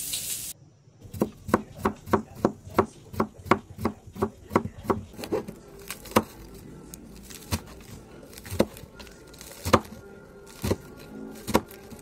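Kitchen knife chopping iceberg lettuce on a cutting board: a quick run of sharp taps, about three a second, then slower taps spaced about a second apart.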